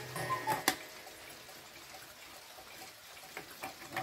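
A cuckoo clock's cuckoo gives a last two-note falling call just after the start, followed by a sharp click as the call ends. After a quieter stretch, a few faint clock ticks come in near the end.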